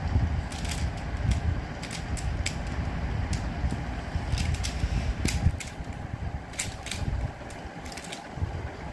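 Plastic Pyraminx puzzle being turned fast in the hands, its pieces clicking in irregular quick runs, over a steady low rumble that eases about seven seconds in.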